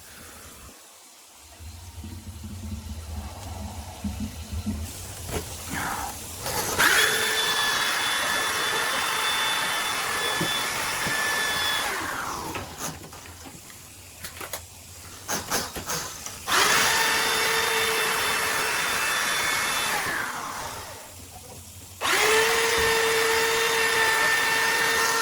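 Electric drain-cleaning machine spinning its cable in a clogged kitchen drain line. It runs in three spells of a few seconds each, with a steady motor whine that starts and stops abruptly each time.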